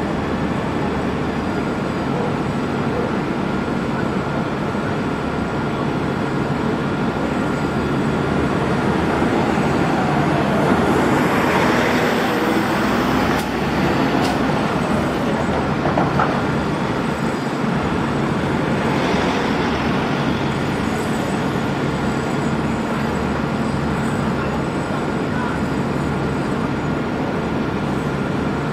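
Steady road traffic noise, with one vehicle passing louder near the middle and another a few seconds later.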